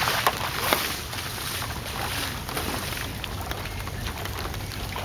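Bare feet splashing through ankle-deep floodwater on grass, a few sharp splashing steps in the first second, then softer wading, with wind rumbling on the microphone.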